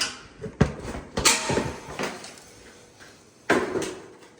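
Handling noise: four separate sharp knocks and rattles, the loudest a little over a second in, with a creak between them.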